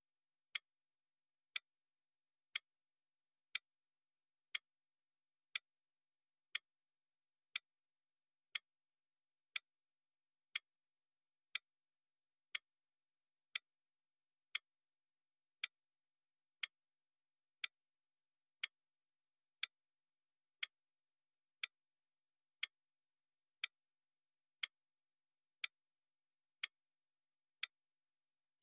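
Clock ticking steadily, one sharp, dry tick each second, marking the seconds of a countdown timer. There is silence between the ticks.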